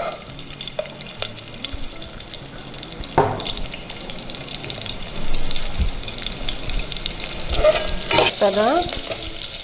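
Small shallots sizzling and crackling steadily in hot oil in a saucepan while a metal slotted spoon stirs them, with two sharp knocks of the spoon against the pan, about three seconds in and near the end.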